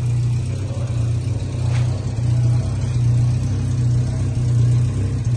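1965 Sunbeam Rapier's four-cylinder engine idling steadily with a low, even hum.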